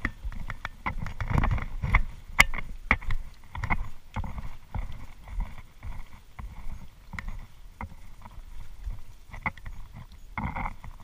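Footsteps on a dirt path and the handling of rubber snorkel gear, heard as irregular clicks, knocks and low thumps with some rustling.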